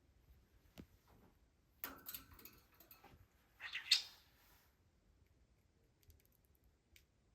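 Budgerigar chirping and chattering in short bursts, the loudest about four seconds in, with a few faint clicks near the end.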